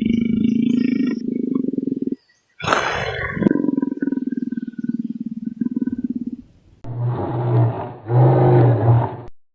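A large animal growling and roaring: a long low pulsing growl, a second one after a short break, then two louder, deeper calls near the end.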